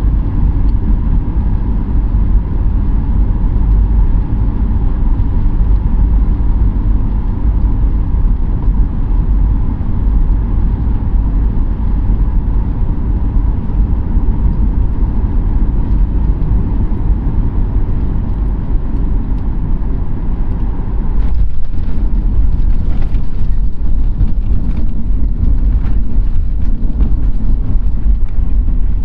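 Cabin noise of a Boeing 737 MAX 8-200 with CFM LEAP-1B engines coming in to land: a steady engine and airflow rumble with a faint whine. About 21 seconds in it grows louder and rougher, with knocks and rattles, as the airliner touches down and rolls out on the runway.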